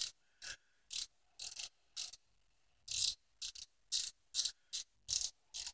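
Plastic twist-up lip crayon being turned in the fingers, its twist mechanism giving short ratchet-like clicks, about two a second in uneven groups.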